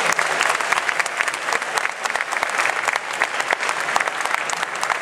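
Audience applauding: many hands clapping in a dense, steady patter that carries on without a break.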